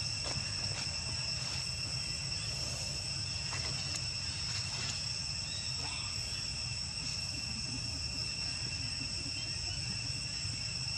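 Steady chorus of insects: a constant high-pitched drone at a few fixed pitches, over a low rumble, with a few faint clicks in the first half.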